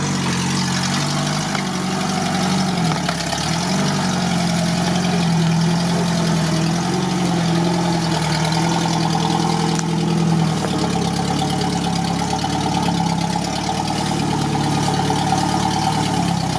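UAZ off-roader's engine working under load through deep swamp mud, its revs dipping and picking up again a few times, then holding a steady note.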